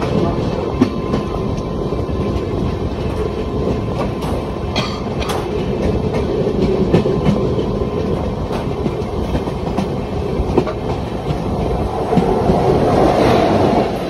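Indian Railways express train running at speed, heard from aboard: a steady rumble of wheels on rail with repeated clicks over the rail joints. Near the end a rising rush builds as a train on the next track comes alongside.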